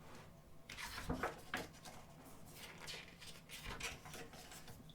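Soft rustling and handling of a large photo book as it is opened and its pages turned, in a few brief scattered bursts.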